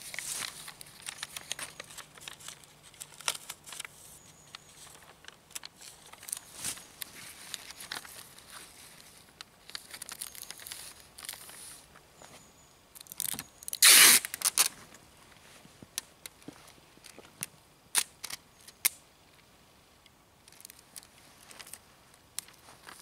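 A paper target being taped onto a plywood board: sheet paper rustling and crinkling under the hands, with short crackles of tape. About 14 s in there is a loud rip of tape being pulled off the roll, the loudest sound.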